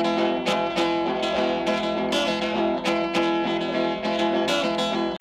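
Delta blues guitar played without vocals: a steady rhythm of picked and strummed notes, about three strokes a second.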